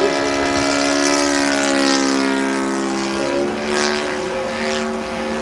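Engine and propeller of a Goldberg Ultimate RC aerobatic biplane in flight, a steady buzzing note whose pitch sags and then climbs again about three seconds in as the throttle and attitude change.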